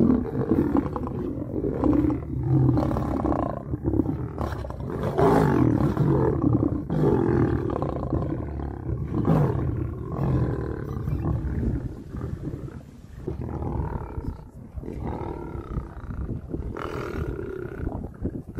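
Lions roaring while fighting, in a string of loud, rough bursts that grow fainter toward the end.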